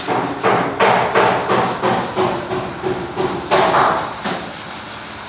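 Hand hammer striking repeatedly, about three blows a second, stopping about four seconds in, as in knocking out a hole for a spotlight fitting.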